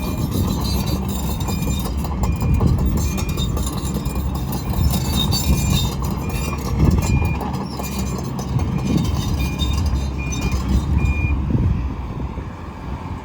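Kobelco SK210LC-9 excavator's Hino diesel running under work, with metal clanking and knocking as it moves rock and concrete. A short high beep repeats through most of it and stops near the end.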